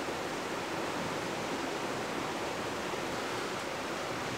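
A river rushing steadily: an even wash of noise with no distinct events.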